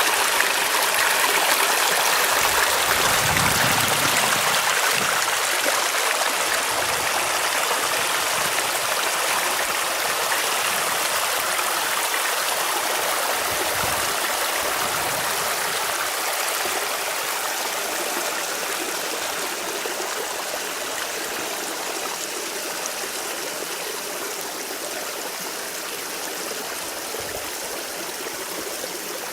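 Waterfall rushing steadily, very loud up close, slowly growing fainter over the stretch.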